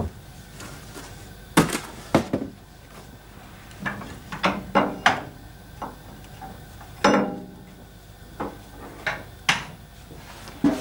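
Steel shovel scraping and clanking against metal while smokebox ash (char) is shovelled out of a steam locomotive's open smokebox into a metal tray. Irregular knocks and scrapes, the loudest a ringing clank about seven seconds in.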